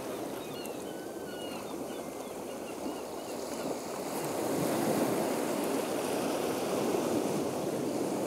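Sea wash ambience: a steady rushing of waves that swells about halfway through, with a few short high chirps in the first few seconds.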